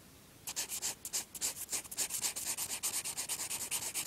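Red felt-tip pen scribbling on paper: rapid back-and-forth colouring strokes, several a second, starting about half a second in.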